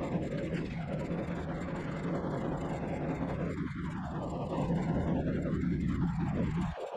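A vehicle engine running steadily with a constant low drone and road or machine noise, dipping briefly near the end.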